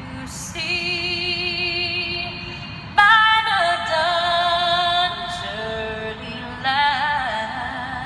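A woman singing unaccompanied, holding long notes with vibrato; a louder, higher phrase comes in about three seconds in.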